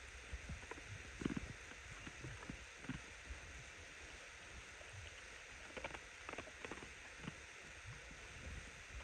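Faint outdoor ambience: a low wind rumble on the phone's microphone, with scattered soft knocks and rustles, clustered about a second in and again around six seconds in.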